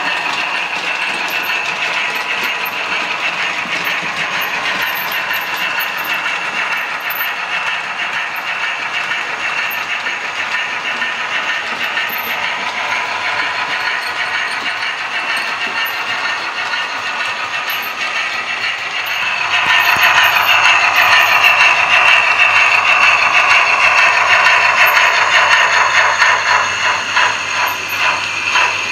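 Model railway trains running on the layout: the steady whirr of small electric motors and wheels on track, which grows louder about two-thirds of the way through as a train passes close by, with a run of quick clicks near the end.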